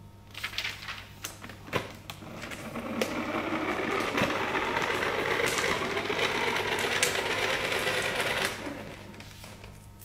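A few knocks and clicks, then a children's ride-on toy scooter moving off, a steady mechanical whirring and rattling that builds over a couple of seconds, holds, and fades away near the end.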